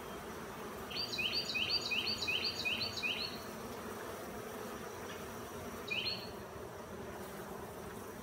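A mass of Italian honey bees buzzing in a steady hum over an open, crowded hive. About a second in comes a quick, even run of about seven high chirps, and a single chirp follows a few seconds later.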